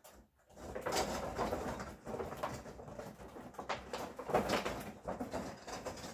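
Rustling and handling noise of bauble ornaments being hung on an artificial Christmas tree's branches, uneven with a few sharper rustles.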